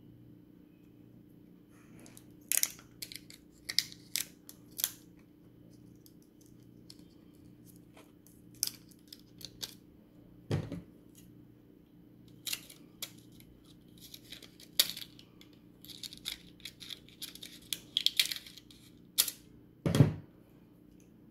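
Thin clear plastic protective film crackling and snapping as it is handled and its backing peeled off: clusters of short sharp crackles, with two dull thumps about ten and twenty seconds in.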